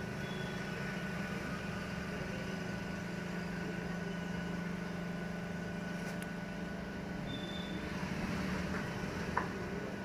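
Vertical hydraulic cardboard baler's electric motor and hydraulic pump running with a steady hum, as its control lever is worked. A single sharp click near the end.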